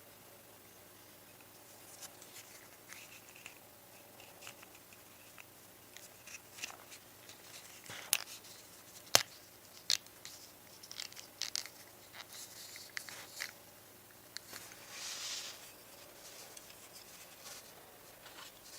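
Quiet hand work on car parts: scattered small clicks, snips and rustling. There is a sharp click about nine seconds in and a short rustling hiss near fifteen seconds.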